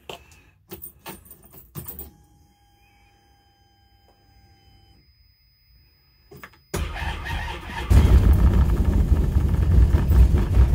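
Can-Am Defender HD10's Rotax V-twin cold-starting at −28 °C after sitting overnight. It cranks for about a second, two-thirds of the way in, then fires right up and runs at a fast cold idle, around 1400 rpm. Before that come a few clicks and knocks, then faint steady tones as the ignition is switched on.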